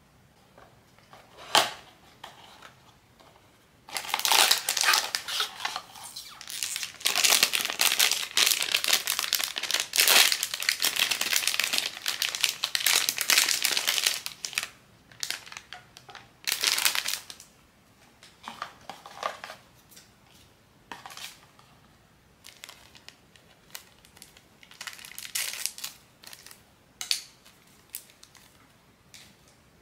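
Blind-box figure packaging being handled and opened: a sharp click about a second and a half in, then about ten seconds of dense crinkling and crumpling, then short separate crinkles.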